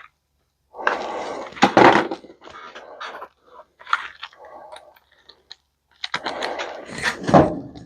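Crunching and knocking of a microwave being pulled apart for scrap, metal and plastic parts scraping and breaking, in two loud stretches about a second in and near the end with scattered clicks between.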